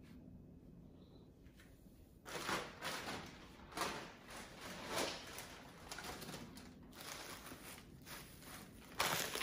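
Handling noise of groceries on a kitchen counter: rustling and light knocks as items are picked up and moved, in a string of short bursts that begins about two seconds in after a quiet start.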